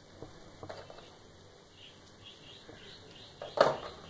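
Light clicks and taps of hand tools being handled against a hard plastic tool-case tray, with one sharp plastic knock about three and a half seconds in as a tool is set down into the tray.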